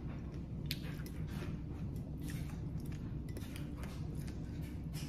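Someone chewing crunchy som tam (spicy papaya salad), heard as irregular small crunches and crackles over a steady low room hum.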